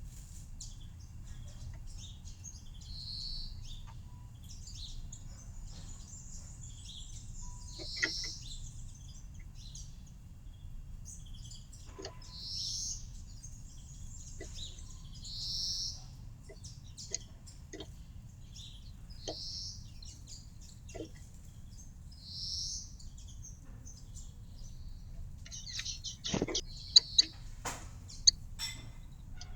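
Small garden birds at a feeder chirping, a short high chirp repeated every few seconds, over a steady low background hum. Several sharp clicks come near the end.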